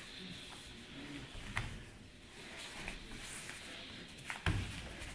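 Two grapplers' bodies shifting and rustling on foam puzzle mats, with a few short knocks and one louder thump near the end as a limb or body hits the mat.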